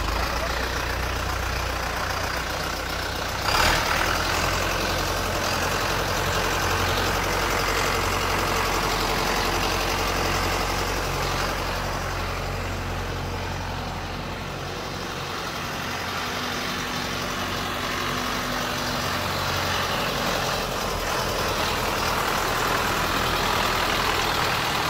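YTO EF 804 tractor's diesel engine running steadily as the tractor drives under its own power, with one sharp clunk about three and a half seconds in.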